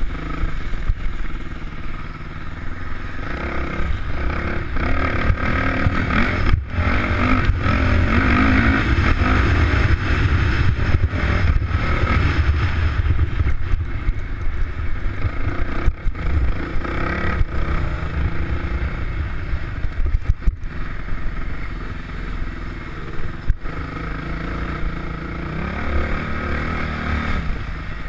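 Off-road dirt bike engine being ridden hard, its pitch rising and falling with the throttle and dropping briefly a few times as the throttle is shut or a gear changes, heard close up from on board.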